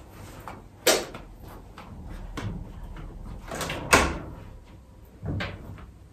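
A built-in dishwasher being opened, with three sharp clicks and knocks: one about a second in, the loudest, a latch click, about four seconds in, and a knock just after five seconds as the door comes down.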